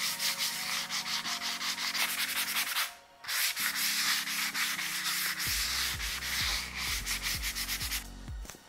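Abrasive sanding sponge rubbed in quick back-and-forth strokes over a dried coat of matte paint on an oak cabinet door, smoothing the paint and taking off any excess. The strokes pause briefly about three seconds in and stop near the end.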